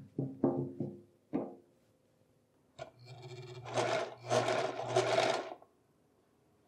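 Electric domestic sewing machine stitching through cotton fabric: a click about three seconds in, then the motor runs with a steady hum in three quick surges for about two and a half seconds and stops.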